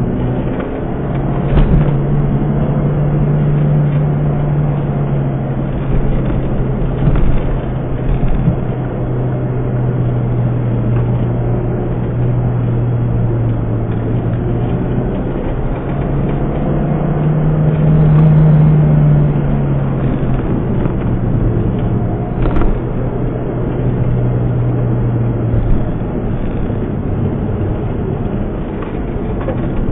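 Honda Civic Type R's four-cylinder engine and tyre noise heard from inside the cabin while driving a winding road. The engine hum is steady, swells about eighteen seconds in, and drops away shortly before the end, with a few light knocks from bumps along the way.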